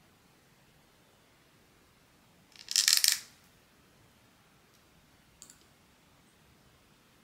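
Blind box packaging and its contents handled, giving a short burst of rapid crisp clicking and crackling a little under three seconds in, then one faint click about two seconds later.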